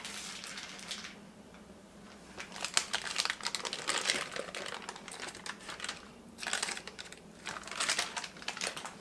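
Clear plastic bag crinkling in several bursts of crackling as cubed cheese is shaken out of it into a bowl of sauce.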